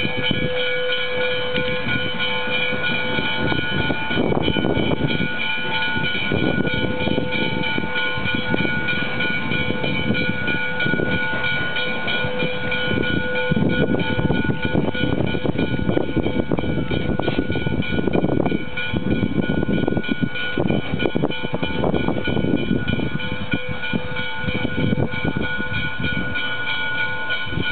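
Canadian National 3254, a 2-8-2 Mikado steam locomotive, running light and moving off, with irregular loud exhaust chuffs over a dense rumble. Several steady high tones sound along with it.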